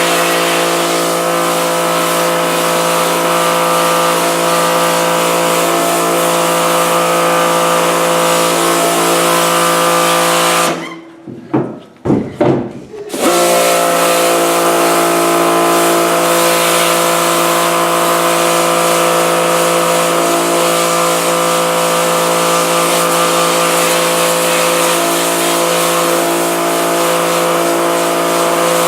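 Pressure washer running steadily, its pump motor humming under the hiss of the spray as it blasts emulsion out of a screen-printing screen. About eleven seconds in it cuts out for two seconds, with a few short spurts as the trigger is worked, then starts up again.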